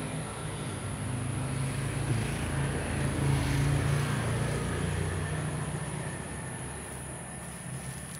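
Engine of a passing vehicle droning, growing louder to a peak around the middle and fading toward the end.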